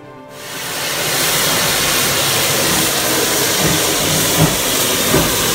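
Steam locomotive hissing steam steadily, the hiss rising over the first second, with a few low thuds in the second half.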